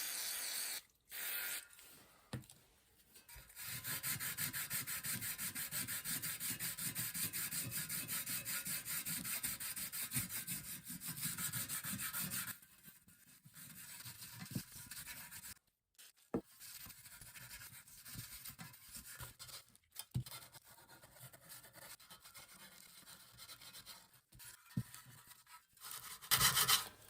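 A Scotch-Brite pad wet with WD-40 scrubbed by hand over a part of a Briggs and Stratton engine, in fast back-and-forth strokes for several seconds, then slower, lighter rubbing with a few small clicks.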